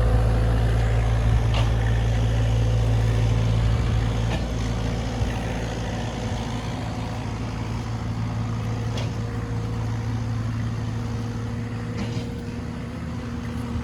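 Heavy engine of construction machinery running steadily with a low hum. It is louder for the first few seconds, then eases off slightly.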